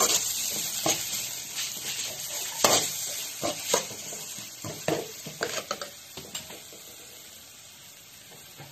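Shredded carrot and capsicum sizzling in oil in a metal pan while a steel ladle stirs and scrapes them. Frequent scrapes and clanks for the first several seconds, then a fainter steady sizzle.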